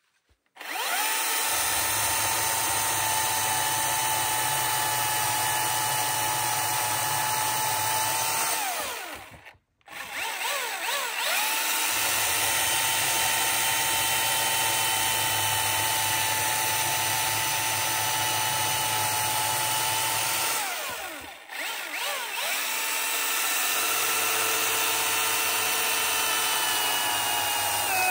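Battery-powered top-handle chainsaw running flat out with a steady electric whine while cutting into a log, three times: each run lasts about eight to eleven seconds, then the motor spins down and stops dead before it is started again.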